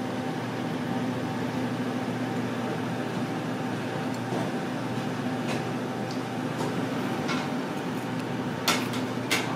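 Steady hum of restaurant ventilation or air conditioning, with a few faint ticks and two sharp clicks near the end.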